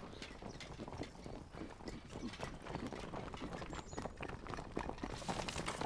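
A ridden horse's hooves clip-clopping on a packed dirt street, a run of uneven hoofbeats that grows louder near the end.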